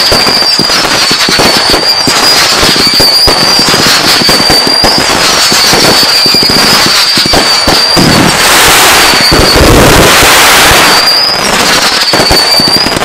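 A daylight fireworks battery firing smoke and crackling comets in rapid succession: dense crackling and popping, with a high steady whistle running through most of it. A louder hissing rush comes about eight to eleven seconds in.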